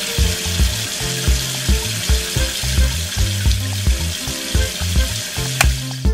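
Steady hiss of a thin water stream jetting from a toy tractor's tank-sprayer nozzle and splashing onto sand, over background music with a regular beat.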